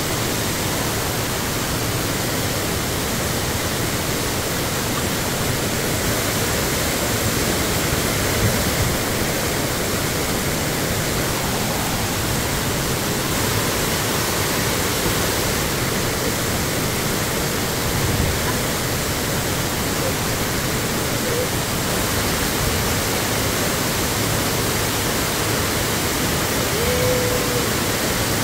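Waterfall pouring into its plunge pool: a steady, loud rush of falling water.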